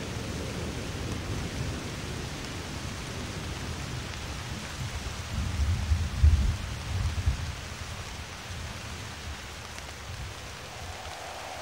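Steady rain-like hiss with a low rumble of thunder that swells about five seconds in and dies away by the middle. It is a storm sound effect within the demo tape's recording.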